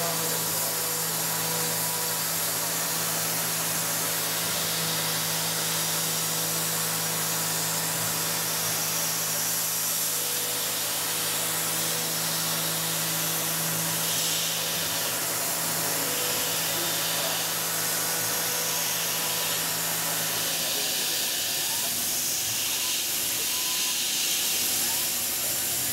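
Tormach 770 CNC mill spindle driving a quarter-inch end mill through a metal part, with a steady machining tone under a constant spray hiss from the nozzle aimed at the cutter. The low hum drops away about twenty seconds in, while the hiss carries on.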